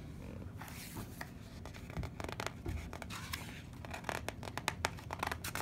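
Paper rustling and light scratching as a picture book's pages are handled and a cat paws at them: irregular soft clicks and scrapes, coming thicker in the second half.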